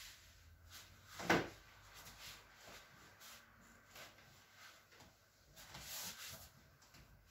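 Hands rubbing and pressing on a clothed lower back during a manual back massage: faint fabric rubbing, with one short, louder sound about a second in.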